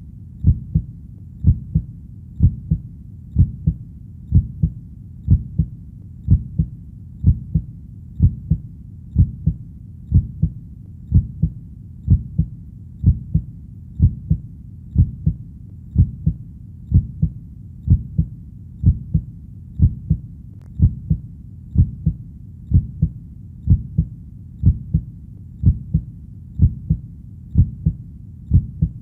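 Heartbeat: a steady, even rhythm of low double thumps (lub-dub), repeating without change.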